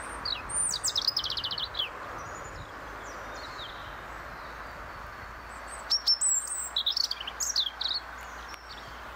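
European robin singing: two short phrases of high, thin warbling notes with a fast trill, one at the start and another about six seconds in, with a few faint notes between. A steady background hiss runs underneath.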